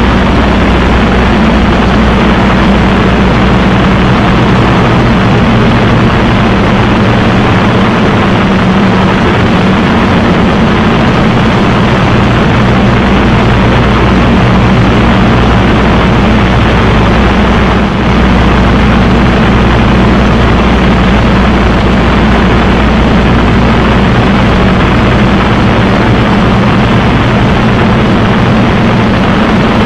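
Spitfire's V12 piston engine droning steadily in flight, heard from inside the cockpit with a rushing hiss of airflow over it. The level dips briefly once, about two-thirds of the way through.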